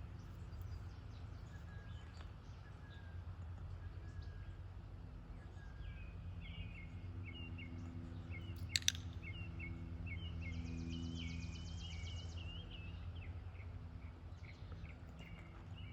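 Outdoor background: birds chirping repeatedly over a steady low hum, with a buzzy trill a few seconds later and a single sharp click about nine seconds in.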